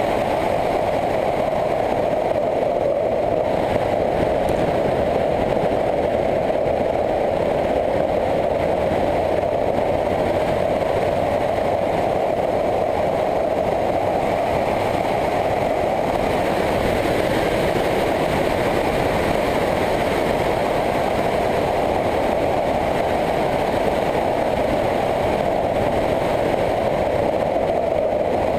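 Motorcycle cruising at a steady speed: engine running under an even rush of riding noise, with no gear changes or revving.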